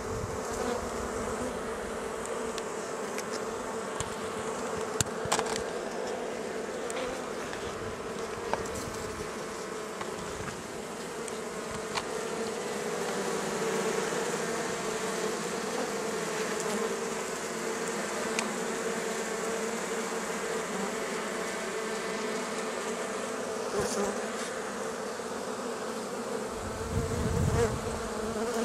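A honey bee colony from an opened tree hive buzzing in a steady, dense hum, the bees stirred up by the cut-out. A few light clicks come through, and there is a short low rumble near the end.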